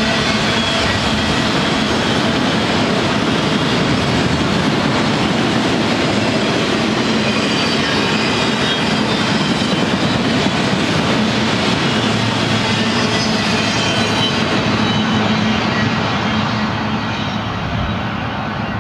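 Auto-rack freight cars rolling past on the rails, a steady rolling noise of steel wheels on track. It fades near the end as the last car moves away.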